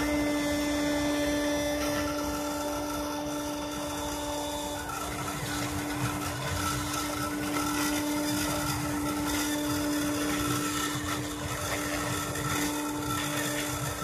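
Rotary-tool spindle of a homemade CNC engraver running steadily with a constant whine, its bit engraving lettering into a clear plastic sheet. Fainter tones from the stepper motors driving the bed and head come and go underneath.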